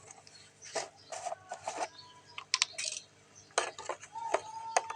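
Kitchen utensils clinking and scraping against dishes, a string of short sharp knocks and scrapes, with a thin steady tone starting near the end.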